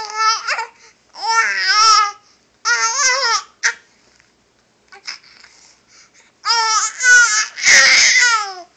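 Baby babbling in high-pitched, drawn-out vocal sounds, several bursts separated by pauses, the longest and loudest near the end.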